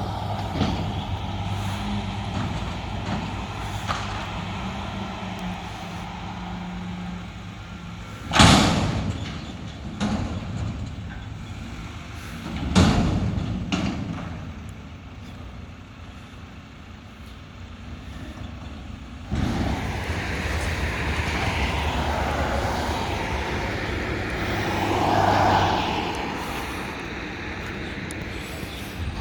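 Mack McNeilus front-loader garbage truck's diesel engine running, with two short, loud air-brake hisses about eight and thirteen seconds in. The engine gets louder again about nineteen seconds in.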